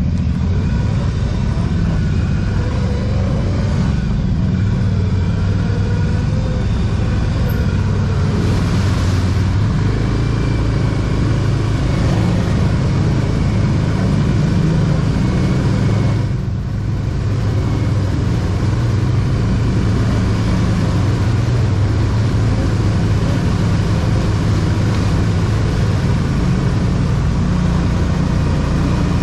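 ATV engine running steadily under way, with a short dip in level a little past halfway as the throttle eases.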